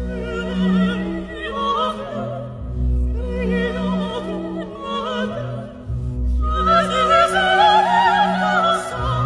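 Background music: an operatic singer with strong vibrato over orchestral accompaniment with sustained low notes.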